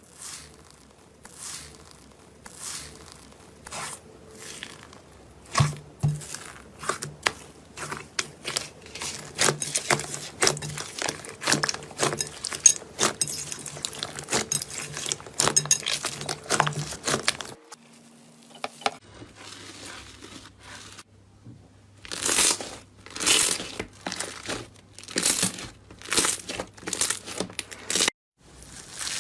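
Slime being squeezed, pressed and stretched by hand, giving rapid runs of crackles and pops, with a short quieter pause about two thirds of the way through.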